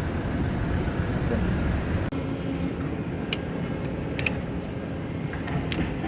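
Steady low machinery rumble, with a few light metallic clinks in the second half.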